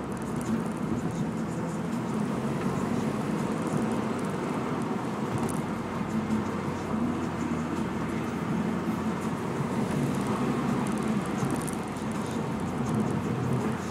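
Renault Mégane RS 225's turbocharged 2.0-litre four-cylinder running steadily under load uphill, with road and tyre noise and a few faint high ticks.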